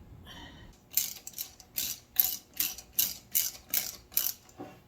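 Ratchet wrench clicking in a run of about nine strokes, two to three a second, as screws on a steering gear box are run down tight.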